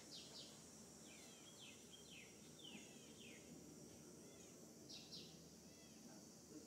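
Near silence: a faint steady high hiss with a few short, high, falling chirps scattered through it.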